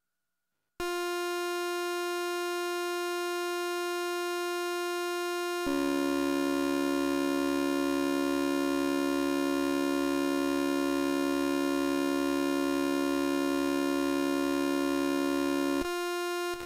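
Eurorack modular synthesizer oscillator starting about a second in with a steady buzzy tone, then turning a few seconds later into a harsher, more complex drone with many added overtones as the waveform is folded and reshaped. Near the end it briefly thins back to the simpler tone.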